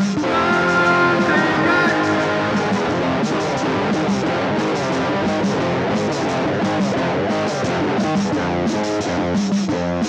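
A guitar played live, strummed chords running on steadily as part of a rock and folk song.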